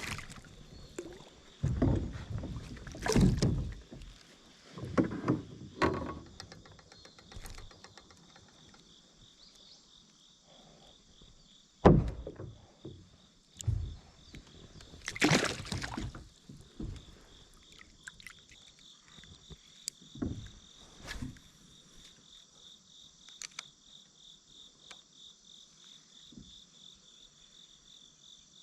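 Insects, likely crickets, trill steadily in a fast pulsing rhythm. Over them come irregular loud knocks, rustles and a sharp thump about twelve seconds in, typical of close handling noise at the water's edge, thinning out in the second half.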